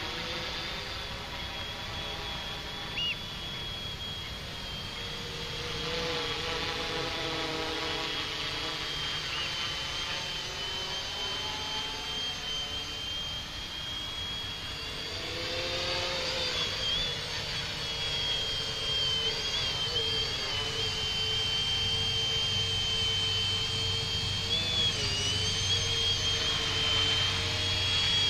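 Quadcopter's electric motors and propellers whining steadily in flight, the high-pitched whine wavering in pitch now and then. It grows louder over the second half as the quad comes in close.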